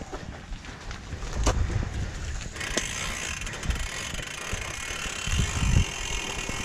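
Mountain bike rolling along a dirt trail: the rear freehub clicking as a ratchet while the wheels turn, over a steady rush of tyre noise, with a few sharp knocks from the bike around a second and a half in.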